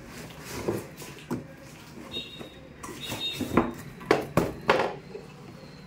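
Cardboard shipping box and a glossy foldable laptop table being handled as the table is slid out of the carton: rubbing and scraping, a couple of short high squeaks near the middle, and a quick run of sharp knocks as the table comes free.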